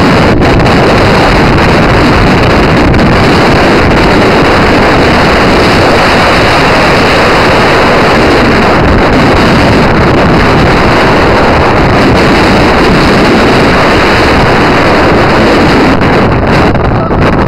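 Loud, steady wind rush buffeting the microphone of a camera carried by a skier moving downhill.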